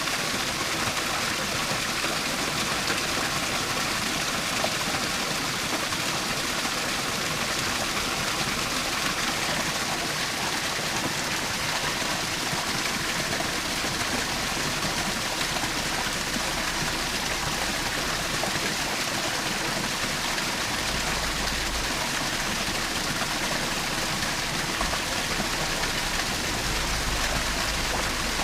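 Small forest waterfall splashing and rushing steadily.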